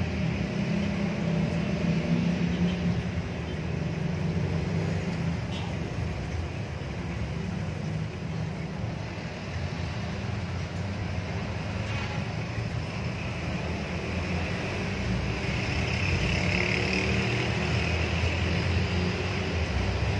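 Steady low background rumble with a fainter hiss above it, unchanging, with no distinct event.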